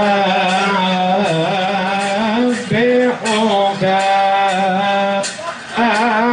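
Male voices chanting a Coptic hymn with musical accompaniment: a melodic, ornamented line over a steady held low note, sung in phrases with brief breaks a third and five sixths of the way through.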